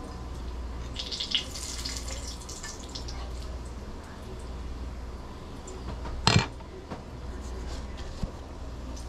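Bacon bites sizzling and crackling in a frying pan while a fork stirs them, with one sharp metal clank about six seconds in.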